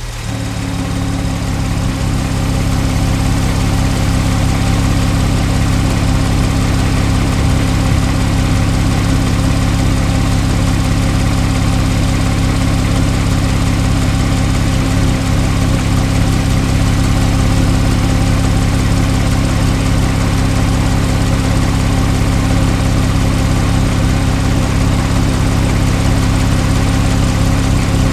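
Porsche 991.1 Carrera 4's flat-six engine with sports exhaust idling steadily, low and even, with no revs.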